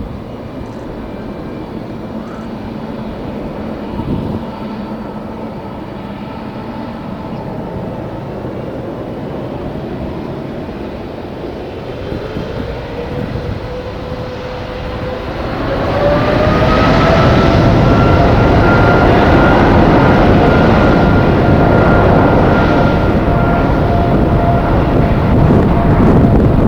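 Jet airliner engines running with a steady low rumble, then, a little under halfway, a rising whine as they spool up, and the sound grows much louder and holds steady with a high whine over a wide rushing noise.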